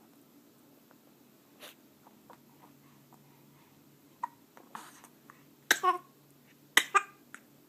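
Four-week-old baby hiccuping: several short, sharp hiccups, faint at first, then two loud ones close together near the end, each a quick double catch.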